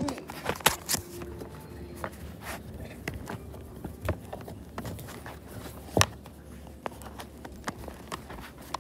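Scattered light knocks and taps at irregular intervals, with two sharper knocks near the start and about six seconds in. This is handling noise from a handheld camera being moved about.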